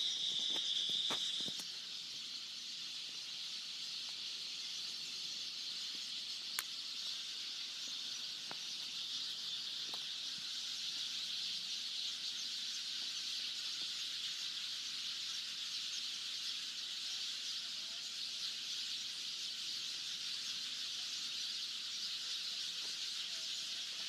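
Steady high-pitched drone of insects, a little louder for the first second or so, with a few faint clicks.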